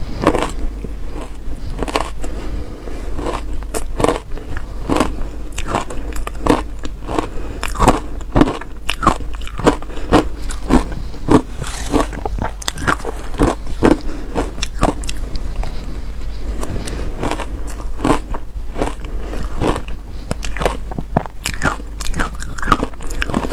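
Close-up biting and chewing of powdery shaved ice: a steady run of crisp, crackly crunches, about one or two bites a second, sped up to 1.25 times normal speed.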